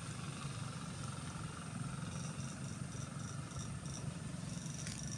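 Battery-powered electrofishing shocker humming steadily while its probes are in use in the water.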